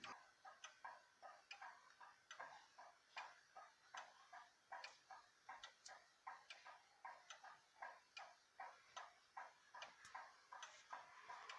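Faint, even ticking of a 1971 Howard Miller Barwick grandfather clock's weight-driven movement, its escapement clicking a little over twice a second.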